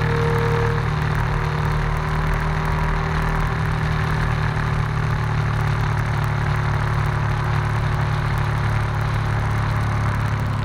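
Motorcycle engine running at a steady cruising pace, heard from the bike itself, with wind and road noise over it.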